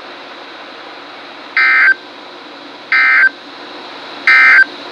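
NOAA Weather Radio SAME digital data bursts, three short buzzy chirps about 1.4 s apart over faint radio hiss: the end-of-message code that closes a weather warning broadcast.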